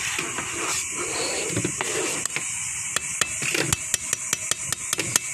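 A metal spoon clinking against a steel cooking pot while simmering sauce is stirred, over a steady hiss from the boiling pot. From about two seconds in the clinks come quickly, about four a second.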